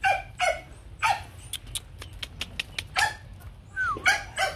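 Dogs barking in a series of short barks, with a pause in the middle filled by a quick run of sharp clicks.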